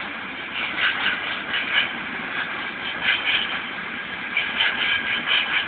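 A freight train passing, its wagons rattling and clattering over the rails in an irregular run of knocks.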